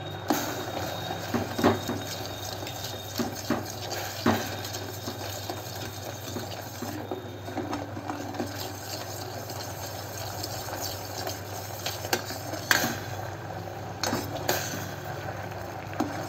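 Sugar and water boiling in a stainless steel saucepan into a thin syrup. A steel ladle stirs it and clinks against the pot several times, loudest about 13 seconds in.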